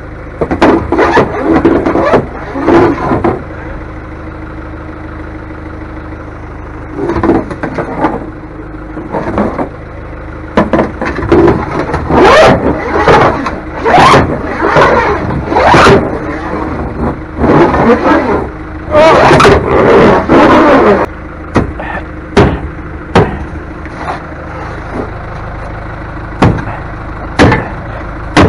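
A vehicle engine idling steadily, with loud irregular clattering over it for most of the stretch and then a few sharp single knocks near the end.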